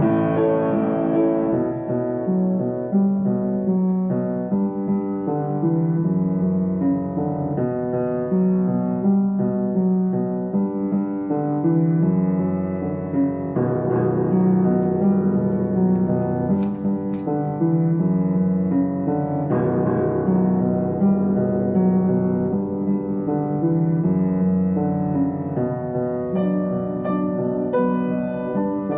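Background piano music, a tune of sustained notes with higher notes joining near the end.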